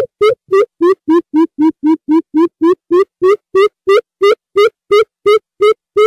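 Greater coucal calling: a fast, even series of deep hooting notes, about three a second, dipping slightly in pitch and then rising again.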